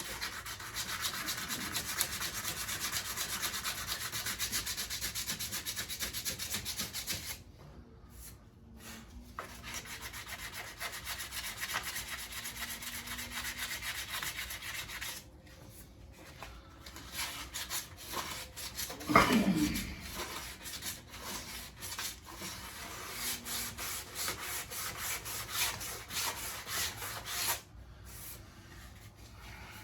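Sandpaper rubbed by hand over the painted steel of a 1967 Ford Mustang's door jamb in rapid back-and-forth strokes, scuffing off the old clear coat before primer. The sanding stops briefly three times, and a single bump is heard about two-thirds of the way through.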